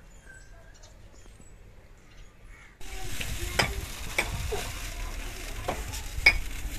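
Faint, near-quiet for about three seconds, then a steady hiss with a few sharp clicks and clinks of jars, bottles and metal pots being handled.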